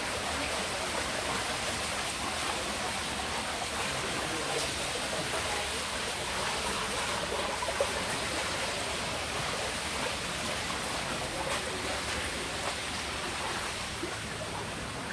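Paddlewheels churning the water of a spirulina raceway pond: a steady rushing and splashing of water.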